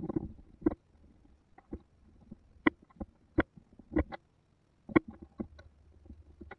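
Metal parts of a Stanley no. 45 combination plane, cast-iron body and steel fence rods, clicking and knocking against each other and the workbench as they are handled and fitted together: a string of irregular sharp knocks.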